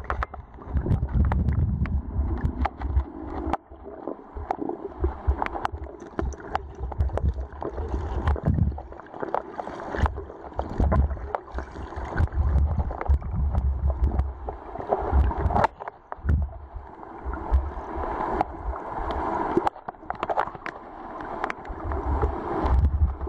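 Creek water recorded with the camera submerged, gurgling and sloshing in uneven surges with a low rumble, and many sharp clicks and knocks of stones and gravel being shifted on the creek bed as it is dug.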